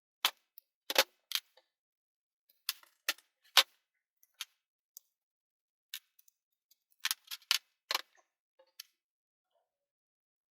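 Sharp clicks and clacks of small hard 3D-printer parts being handled and set down on a work surface, in a few quick clusters with silent gaps between.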